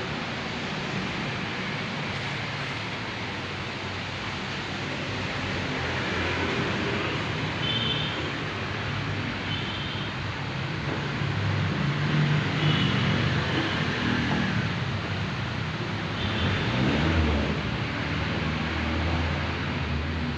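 Road traffic going past: motor vehicle engines swelling and fading over a steady background hiss, loudest twice in the second half.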